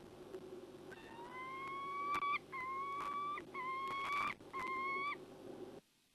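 Female peregrine falcon wailing: four drawn-out calls of about a second each, each rising slightly in pitch.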